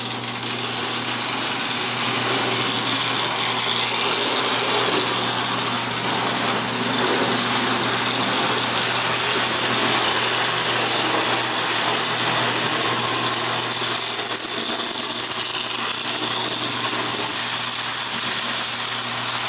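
Tinplate toy train running on tinplate track: its electric motor whirring and wheels clattering on the rails, steady throughout, with a constant low mains hum underneath.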